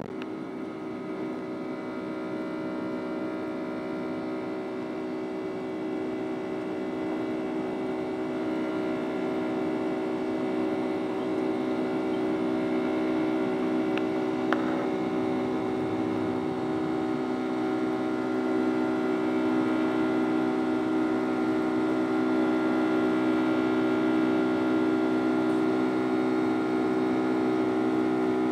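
Boeing 757-200 jet engines at climb thrust heard from inside the cabin during takeoff and initial climb: a steady drone with several held tones over a rushing noise, slowly growing louder. A brief click sounds about halfway through.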